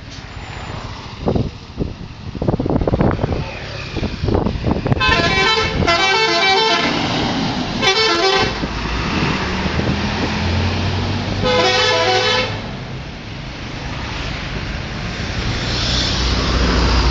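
Multi-tone 'telolet' horn of a Harapan Jaya bus playing short melodic runs of stepping notes in several bursts, starting about five seconds in. It sounds over steady vehicle engine and traffic noise.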